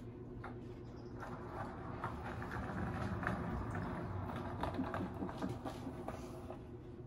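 Skateboard wheels rolling across a parquet wood floor with a cat riding the board: a rumble peppered with rapid small clicks, getting louder over the first few seconds and fading near the end.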